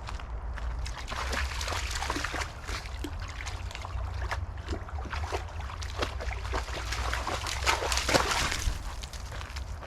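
Irregular splashing and sloshing of water, a run of short crackling splashes over several seconds, over a steady low rumble.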